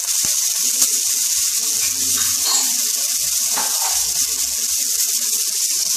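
Chopped vegetables, freshly added green beans among them, sizzling in hot oil in a nonstick kadai: a steady high hiss, with a couple of faint ticks in the first second.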